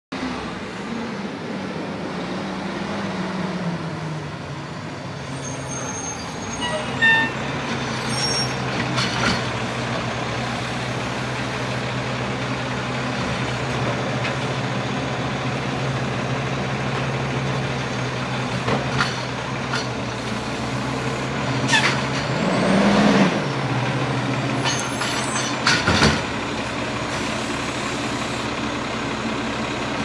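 Automated side-loading recycling truck with a McNeilus body running steadily on its diesel engine while its hydraulic arm lifts and dumps curbside carts. There is a burst of air-brake hiss about seven seconds in, and clanks and knocks from the cart and arm later on. The engine revs up and falls back around twenty-two to twenty-four seconds in, as it drives the lift.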